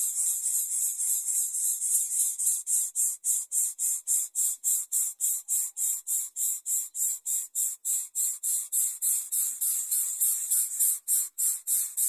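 Insect call: a high-pitched rasping buzz pulsing steadily at about five beats a second.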